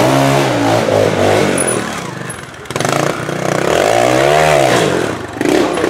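Trial motorcycle engine revved hard in short throttle blips while climbing rocks: a burst at the start that drops away over about a second, then a second rise and fall of revs near the end.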